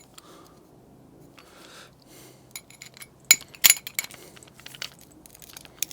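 Light metal clinks and clicks as a pilot drill bit and its holder are loosened and pulled apart by hand, the sharpest two about a second into the second half.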